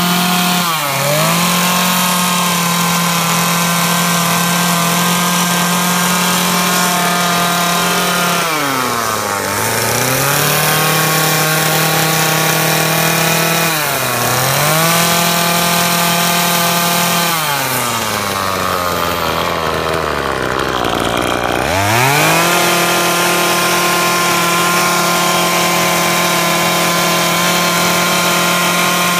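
Two-stroke chainsaw running at high revs while carving into an ash trunk. Its pitch drags down and climbs back four times as the chain bites and then clears the wood: about a second in, near ten seconds, near fifteen seconds, and longest for several seconds about two-thirds of the way through.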